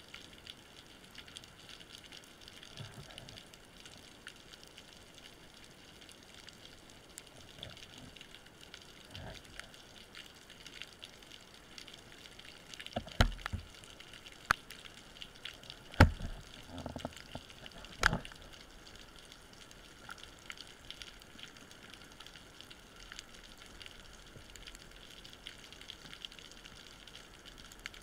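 Underwater ambience picked up by a camera on a speargun: a steady faint crackle of many tiny clicks, with a cluster of sharp knocks around the middle.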